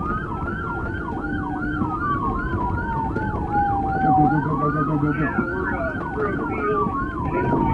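Police sirens sounding together: one on a slow wail that rises and then falls over about four seconds, another on a fast yelp of about four sweeps a second. Under them is the rumble of the pursuing cruiser driving over rough grass.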